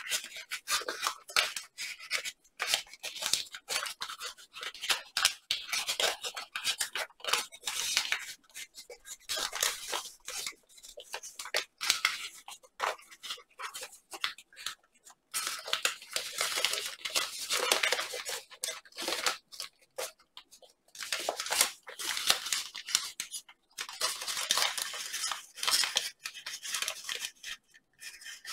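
Origami paper being folded and shaped by hand: crinkling and rustling with sharp crackles as the paper is creased and pinched. The sound comes in irregular spurts with short gaps.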